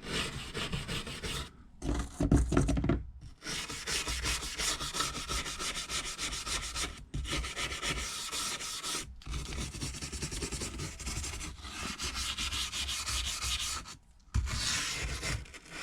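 A tool rubbing and scraping in fast, repeated strokes along the iPad Air's frame to clear away old screen adhesive, with a few brief pauses between passes.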